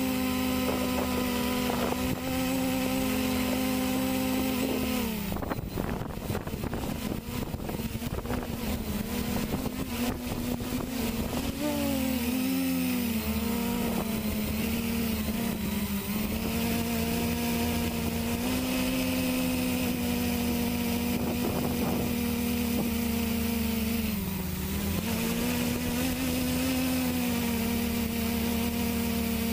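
A quadcopter's four brushless motors spinning 10x5-inch propellers, heard from a camera mounted on the frame: a steady, pitched buzz. It turns rougher and choppier from about five seconds in until about twelve seconds. The pitch dips and wobbles with throttle changes around twelve seconds, again near twenty-five seconds and near the end.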